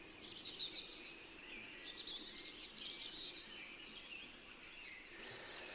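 Faint bird chirping in the background, scattered short chirps rather than a steady song, with a soft hiss near the end.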